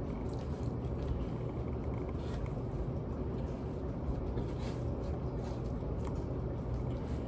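Steady low background hum, with a few faint, soft sounds of hands handling raw seasoned chicken pieces.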